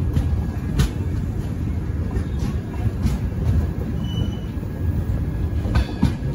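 Passenger train rolling slowly out of the station: a steady low rumble of the coach running on the track, with a few sharp clicks of wheels over rail joints.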